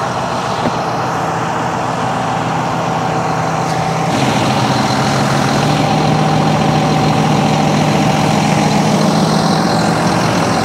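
Tractor diesel engine running steadily, with a steady higher whine over it; it gets a little louder and deeper-toned about four seconds in.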